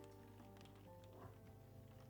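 Quiet background music of soft, held notes.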